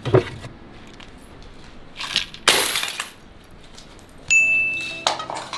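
Clay piggy banks (gullaks) being smashed: a knock, then a loud crash about two seconds in, with coins clinking. A steady high beep sounds for under a second near the end, followed by another short crash.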